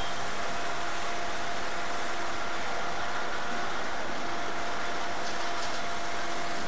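An engine running steadily under a constant hiss, with a steady even-pitched hum.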